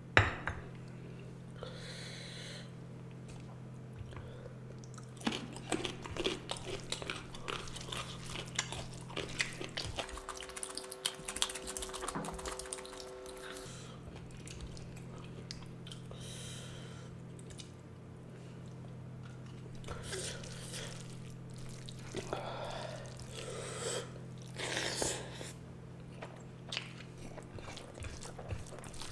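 A person chewing and biting mouthfuls of rice with fish curry and egg curry close to the microphone. There are runs of crackly clicks in the middle and a low steady hum underneath that drops out briefly.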